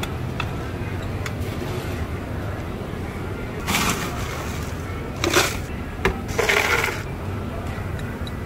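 Metal scoop digging into crushed ice in an ice chest: three rough scrapes and crunches of ice, each under a second, about four to seven seconds in, over a steady low background hum.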